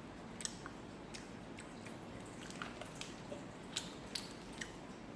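Faint wet clicks and squishes of a jelly bean being chewed, several separate clicks spread through.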